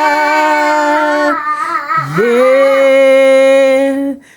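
A woman's voice singing a gospel worship song, holding one long note, then dipping and gliding up about two seconds in to another long held note that breaks off near the end.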